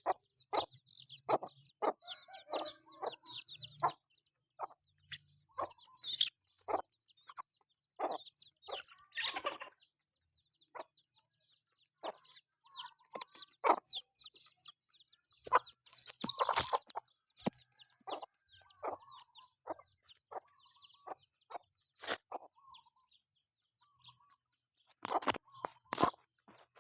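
Chickens clucking as they forage, in short scattered calls, with rapid high chirping in the first few seconds and again around the middle, and a few brief scratchy noises.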